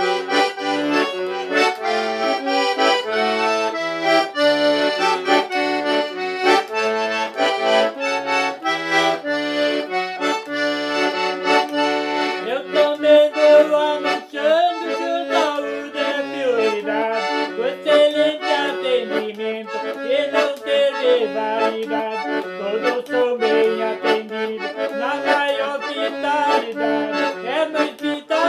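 Accordion playing a lively traditional tune: a melody over chords and bass notes.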